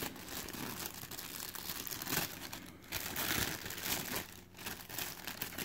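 Thin clear plastic wrapping crinkling and rustling irregularly as hands work it loose and peel it off a PVC figure.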